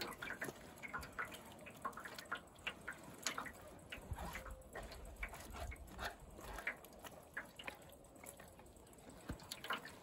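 Crushed tomatoes being rubbed by hand through a sieve in a wooden frame, straining the juice from the seeds and skins for tomato paste. The pulp squelches against the mesh in irregular wet crackles, and juice drips into the tub below.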